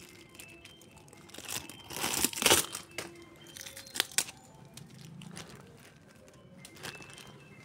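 Thin plastic packing bag crinkling as it is handled, loudest about two seconds in, followed by a couple of sharp clicks about four seconds in.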